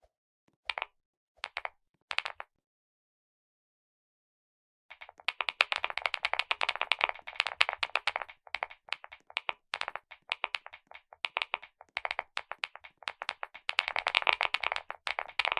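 Clicky mechanical key switches being pressed. There are three short bursts of clicks early on, then after a pause, fast continuous clicking for about ten seconds, broken by brief gaps.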